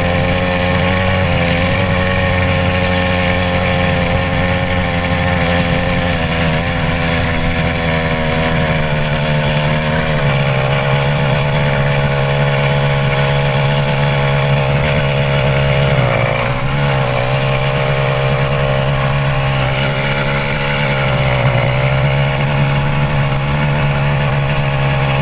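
Stock 66cc two-stroke motorized-bicycle engine running under way. Its note picks up about ten seconds in and dips briefly a few seconds later.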